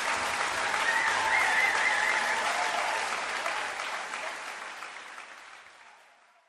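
Concert audience applauding after a choir song, with one voice calling out briefly about a second and a half in. The applause fades away steadily over the last few seconds.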